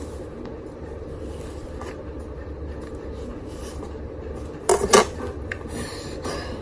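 Steady low background hum, with a short burst of sharp clattering rustles about five seconds in.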